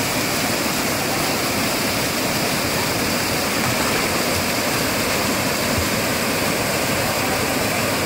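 Small waterfall cascading over rocks into a pool, a steady rush of water.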